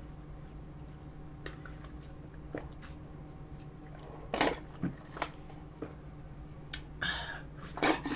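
Quiet eating sounds of a person sucking tiramisu cream from a plastic pouch through a straw: soft mouth clicks and smacks, a few sharper clicks about halfway through, and a short slurp near the end, over a faint steady hum.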